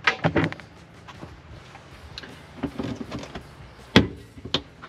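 Hard plastic clattering and knocking as a vehicle's interior side trim panel is pulled at its edge to pop its retaining clips, with a clatter at the start, a run of knocks around three seconds in, and one loud sharp snap about four seconds in.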